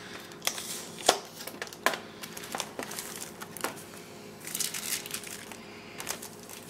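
Clear plastic packaging crinkling and clicking as a boxed action figure is lifted out of its clamshell tray and its protective plastic is handled. Separate sharp crackles come first, then a denser stretch of crinkling past the middle.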